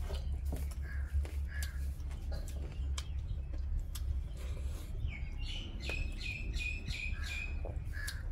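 Birds calling, with a run of about six quick, even chirps a little past halfway and a few short calls near the start and the end. Soft clicks and a steady low hum run underneath.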